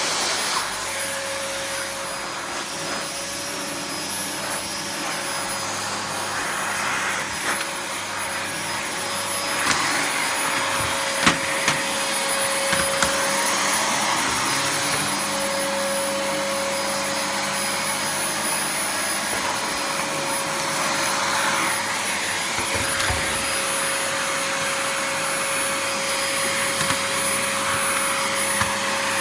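Vacuum cleaner running steadily, a continuous rushing noise with a steady mid-pitched whine. A few brief sharp knocks come about a third of the way through.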